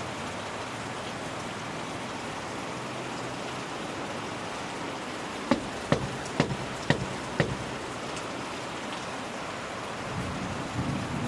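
Steady rain falling. About halfway through, five sharp knocks come in quick succession, roughly two a second, and a low rumble of thunder begins building near the end.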